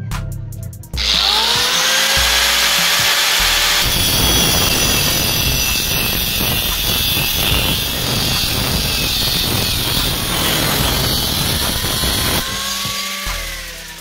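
Angle grinder with a cutting disc spinning up with a rising whine about a second in, then cutting through a rusty steel tube for about eight seconds, and spinning down with a falling whine near the end. Background music is heard at the start and again at the end.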